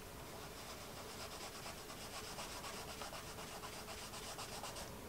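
Fingertips rubbing water-soluble pastel into paper, a quick, even back-and-forth scrubbing that blends a deep red over yellow. It starts about half a second in and stops just before the end.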